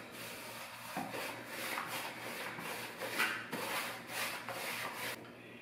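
A hand applicator rubbed back and forth over a rough painted concrete wall, working in tinted acrylic varnish for a patina. It makes quick, even rubbing strokes, about two or three a second.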